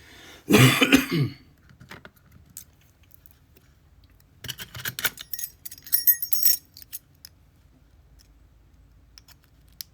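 Small metal padlock parts (pins, springs and lock body) clinking and rattling as they are handled during disassembly and repinning: a loud rattle about half a second in, then a run of light clicks and high metallic tinkling around the middle.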